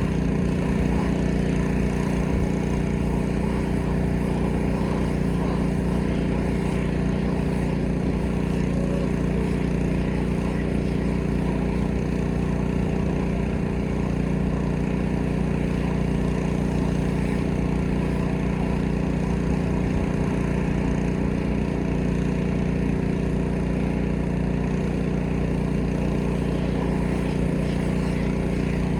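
Small petrol engine of a pressure washer running at a steady speed, with the noise of the water spray.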